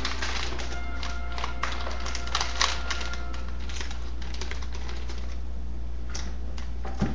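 Wrapping paper crinkling and rustling in irregular crackly bursts as it is handled and folded, over a steady low hum.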